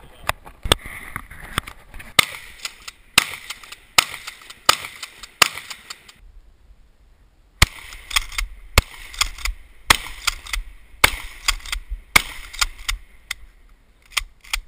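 A long string of shotgun shots fired in quick succession, about one a second or faster. There is a short pause about six seconds in, then the shooting picks up again.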